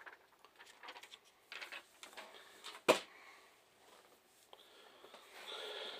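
Faint handling noises of a smartphone being turned over in the hands: scattered soft clicks and rustles, with one sharp click about three seconds in and a brief soft hiss near the end.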